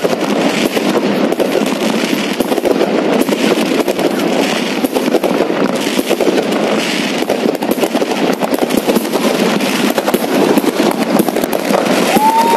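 Dense, continuous crackling and popping of many fireworks and firecrackers going off at once, with a short steady whistle near the end.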